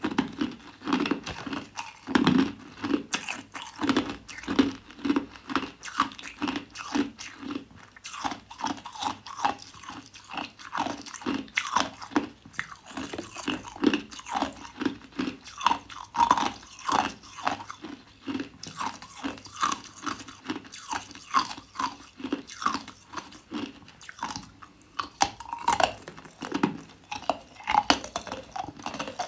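Hard clear ice being bitten and chewed: a steady run of sharp, loud crunches, a few each second.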